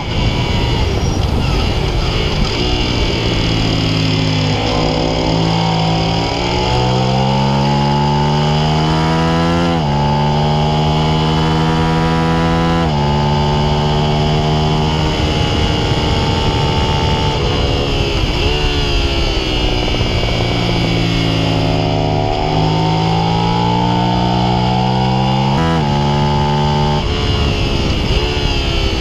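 Suzuki SV650's V-twin engine at racing speed, climbing in pitch under hard acceleration with sudden drops at each upshift. Partway through the pitch falls away as the bike slows for a corner, then it climbs hard again.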